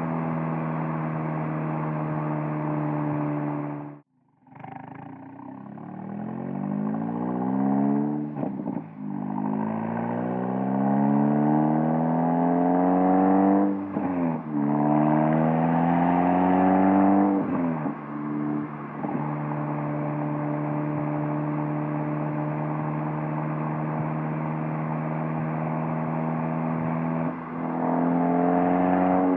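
Exhaust note of a VW Golf R's turbocharged four-cylinder through a Borla S-type valved catback, heard at the rear bumper. It holds a steady cruise, cuts out briefly about four seconds in, then pulls through several gears with the pitch rising in each and short dips at the manual shifts. It settles into a steady drone, and the pitch steps up near the end.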